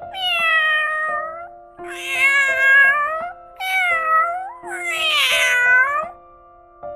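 Domestic cat meowing in four long, drawn-out calls whose pitch bends up and down, over background music with sustained notes.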